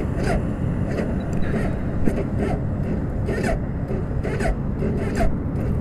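Turbocharged Suzuki Hayabusa inline-four engine idling with the bike at a standstill, heard through the rider's helmet mic, with a short puff of noise about once a second.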